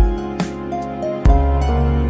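Background music: soft new-age style instrumental with held notes, a deep bass and sharp percussive hits on the beat.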